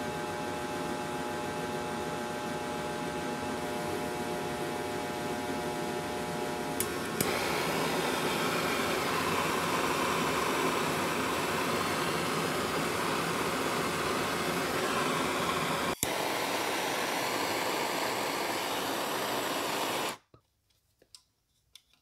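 Steady, even rushing noise like a blower running, with a faint hum of steady tones under it for the first several seconds. It changes character at two cuts, about seven and sixteen seconds in, and stops abruptly near the end.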